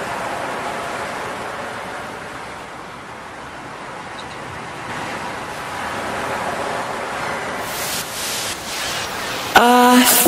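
Steady rushing sound of water, like surf, swelling and easing slowly. Music comes in just before the end.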